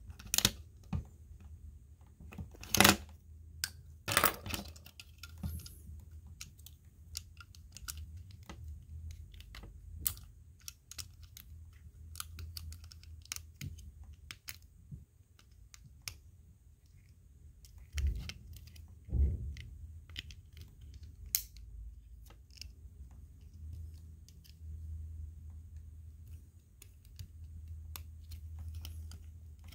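Plastic Lego pieces clicking and rattling as they are handled and pressed together, in irregular sharp clicks over a steady low hum, with two duller knocks a little past halfway.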